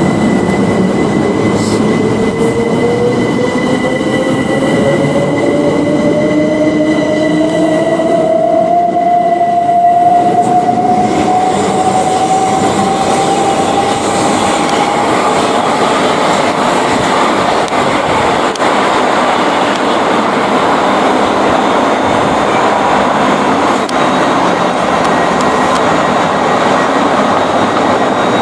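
Electric train passing close by: a loud, steady rumble of wheels on the rails, with a motor whine that rises steadily in pitch over the first fifteen seconds or so.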